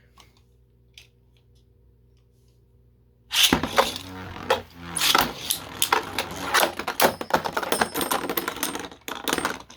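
Near-quiet for about three seconds, then 3D-printed Beyblade spinning tops clattering and clashing in a plastic stadium: a sudden, loud, rapid run of hits and scrapes lasting about six seconds.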